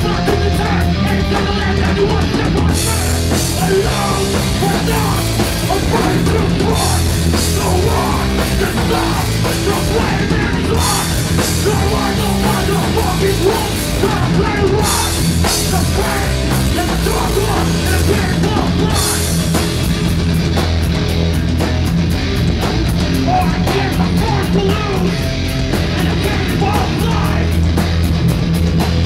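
A hardcore band playing live and loud: distorted electric guitar, bass and a full drum kit, with a vocalist shouting into the mic. Stretches of crashing cymbals come and go, and in the last third the drums settle into a fast, even beat.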